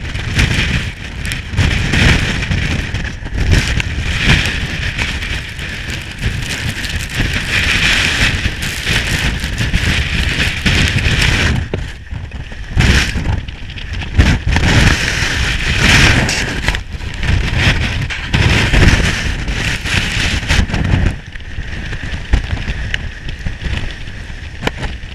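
Strong gusting mountain wind buffeting the camera microphone, with the hiss of wind-driven snow. The gusts swell and ease every second or two.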